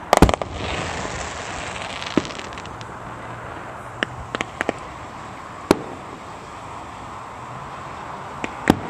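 Fireworks exploding. A loud cluster of bangs comes just after the start, followed by about a second of crackling, then scattered single sharp bangs every second or so.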